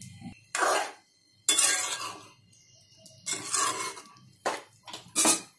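A metal spatula scraping against a metal kadai in about six short, separate strokes, stirring boiled chickpeas into thick gravy.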